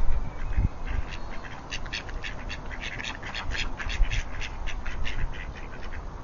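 Mallard ducks quacking: a rapid run of short calls, several a second, busiest in the middle, with low rumbling bursts near the start.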